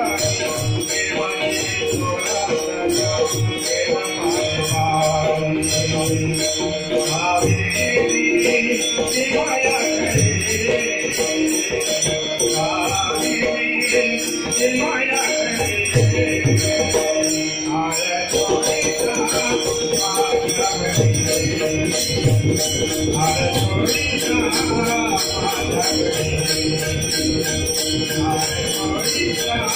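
A bhajan group performing a Marathi abhang: voices singing over steady jingling hand cymbals and a drum beat.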